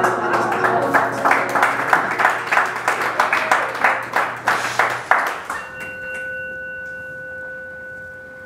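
Small audience applauding with scattered claps. About five seconds in the applause stops and a steady ringing tone at a few fixed pitches takes over and holds.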